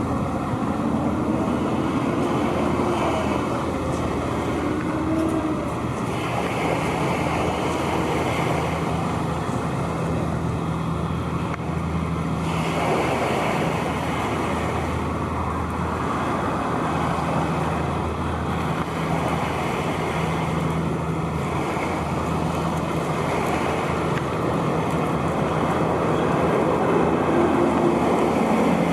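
Steady low engine drone mixed with passing road traffic and wind, a hum holding one pitch throughout. Vehicles sweep past about a second in and again near the end.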